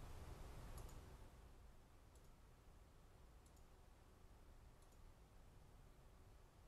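Near silence with four faint computer mouse clicks, about one every second and a half.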